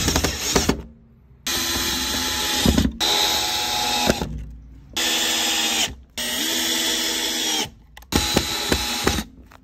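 Cordless drill-driver driving screws through vinyl seat upholstery into a wooden plank. The motor whines in about six short runs of a second or so each, starting and stopping as each screw is driven.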